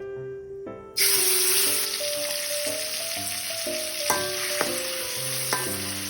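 Food sizzling in hot oil in a pan, the sizzle starting suddenly about a second in and holding steady, with a few sharp clicks of a utensil against the pan. Background music plays throughout.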